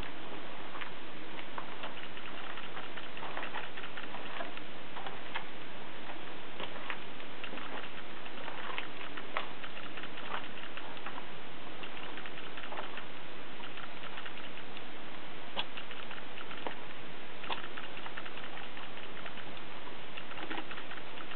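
Footsteps on a floor of loose rock and gravel: a scatter of short, irregular crunches and clicks over a steady hiss.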